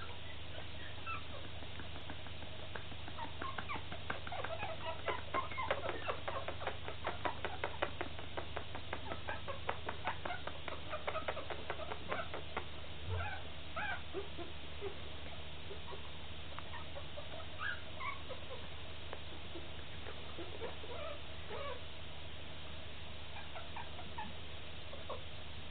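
Three-week-old Bolognese puppies squeaking and whimpering: a quick run of short, high squeaks that is busiest in the first half and thins to scattered calls later, over a steady low hum.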